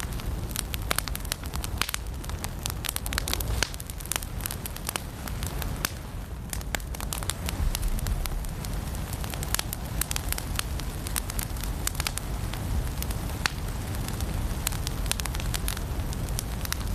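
Firewood burning in a fireplace, crackling steadily with frequent sharp pops and snaps over a low steady rumble.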